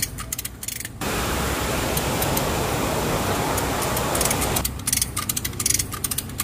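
Lever chain hoist ratchet clicking rapidly as it is worked to draw excavator track links together. About a second in, the clicking gives way to a steady rushing hiss for roughly three and a half seconds before the clicking returns.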